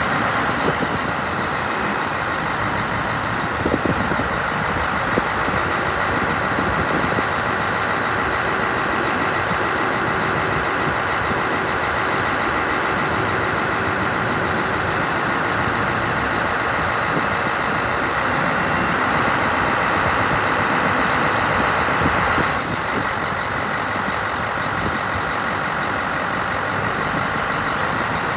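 Scania R164's V8 diesel engine running with the hooklift's hydraulics working as the hook arm folds down to its stowed position, a steady whine over the engine sound. The sound drops a little about three-quarters of the way through.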